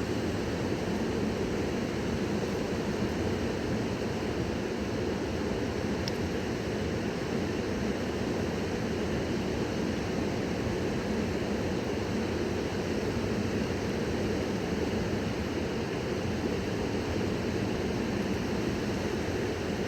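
Khersan River water rushing with a steady, even roar.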